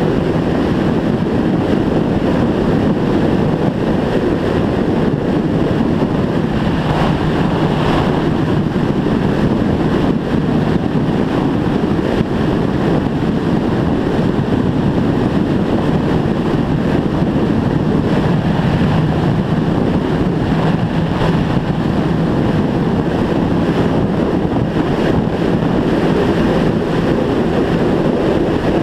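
Motorcycle cruising at a steady speed: wind rushing over the microphone over a steady engine drone, with no change in revs.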